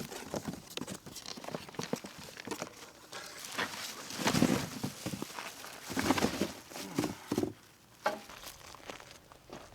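Irregular rustling, crinkling and knocking of things being handled, with louder bursts about halfway through and again a little later.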